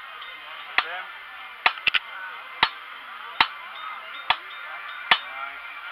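Blacksmith's hammer striking hot metal on an anvil, sharp ringing blows a little more than once a second, with a quick run of lighter taps about two seconds in.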